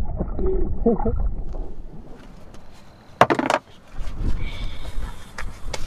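Muffled water sound heard through a camera held under the surface, then the camera comes out of the water: a loud handling knock about three seconds in, followed by wind on the microphone.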